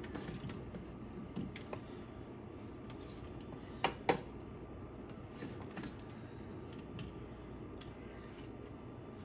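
Light clicks and clatter of kitchen utensils being handled, with two sharp clacks close together about four seconds in, over a low steady hum.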